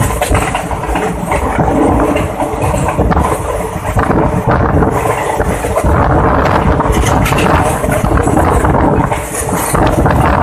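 Passenger train coach running at speed: a steady, loud rumble and rattle of wheels on rails and the coach body, with wind buffeting the microphone at the open window.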